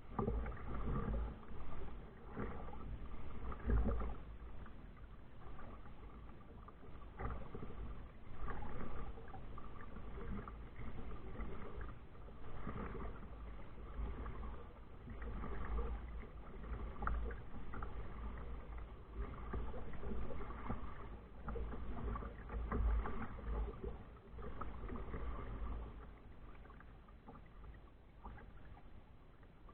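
Kayak being paddled: irregular paddle strokes swishing and splashing in the water every second or two, over a steady low rumble.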